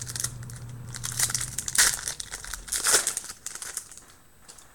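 A foil trading-card pack wrapper being crinkled and opened by hand. The crackling is loudest in two bursts about two and three seconds in, then dies away.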